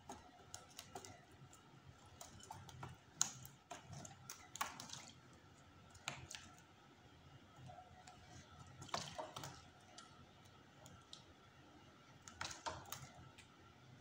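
Faint, irregular light taps and clicks, a few of them sharper, from a Fischer's lovebird moving about its wire cage and plastic bath dish.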